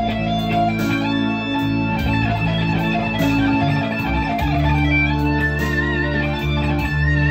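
Electric guitar playing a lead melody over a slow rock ballad backing track in D minor, with drums and sustained bass and chords beneath it. Near the end a held lead note wavers with vibrato.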